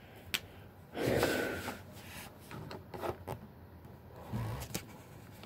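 Close handling noises of markers and paper: scattered small clicks and knocks, with a short, louder rubbing sound about a second in.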